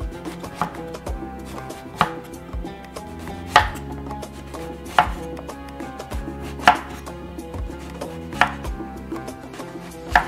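Kitchen knife slicing an eggplant into rounds on a bamboo cutting board. Each cut ends in a sharp knock of the blade on the wood, about every one and a half to two seconds, with lighter taps between.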